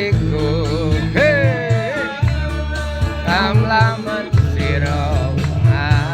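A song: a solo voice singing a melody with wavering held notes over instrumental backing with a steady bass line.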